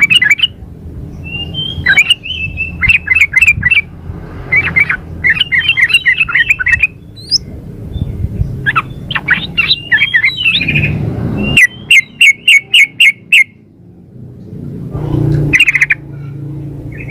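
Yellow-vented bulbul (trucukan) female calling: short bursts of quick, chattering bubbly notes, with a run of about eight sharp, evenly spaced notes a little past the middle, used to lure males into answering.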